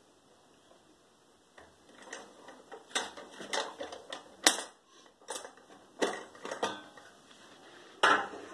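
Metal clicks and clanks from a cheap sheet-metal paper-log press as its lever handles are released and swung apart. The first second or so is quiet, then an irregular run of sharp knocks follows, the loudest about halfway through and another near the end.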